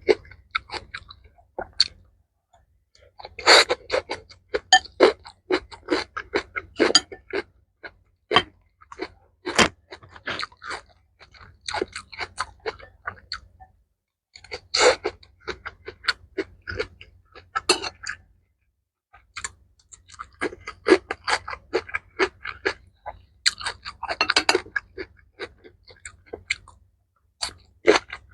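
Close-miked chewing and crunching of a mouthful of mixed rice with kimchi and pickled mustard greens: runs of many quick, crisp crunches broken by short pauses.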